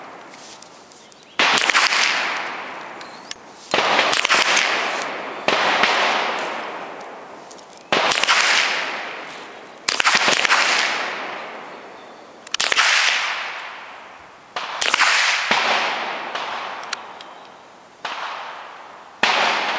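Rifle shots on an outdoor firing range: about eight loud cracks at uneven intervals, each followed by a long echo that fades over a couple of seconds.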